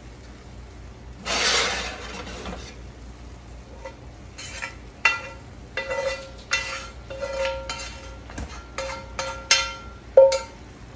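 Slotted spoon scraping and knocking against the rims of cast-iron skillets as ground beef is scraped from one skillet into another: about a dozen sharp knocks, many leaving a short metallic ring. A brief rushing scrape comes about a second in.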